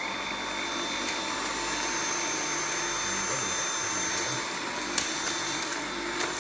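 Dyson V7 Animal cordless stick vacuum running steadily on its high-suction max setting: a rush of air with a steady high motor whine. There is one brief click about five seconds in.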